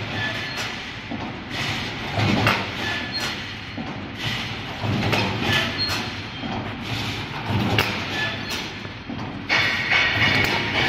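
Automatic wire mesh panel welding machine running, with a repeating clunk about once a second over a steady mechanical din as it cycles.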